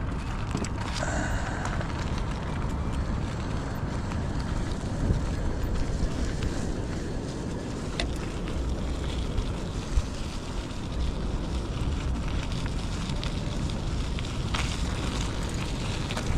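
Wind buffeting the microphone of a GoPro on a moving bike: a steady low rumble, broken by a couple of brief ticks.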